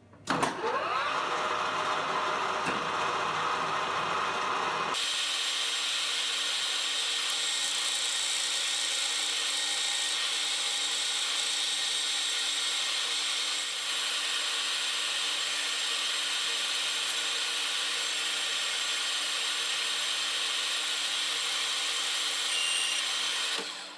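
Metal lathe spinning up, then turning a starter ring gear in its three-jaw chuck while the tool takes a facing cut to thin the ring. The sound rises in pitch as it starts, changes abruptly about five seconds in, then runs steadily and cuts off near the end.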